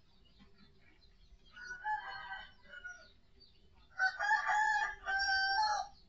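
Rooster crowing twice: a fainter crow about a second and a half in, then a louder one from about four seconds in, drawn out in two long parts.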